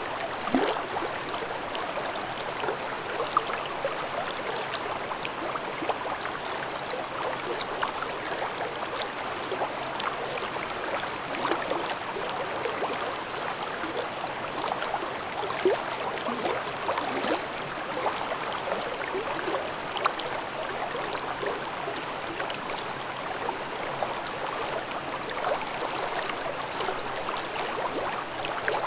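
Mountain stream babbling in a gorge: a steady rush of flowing water with many small gurgles and splashes.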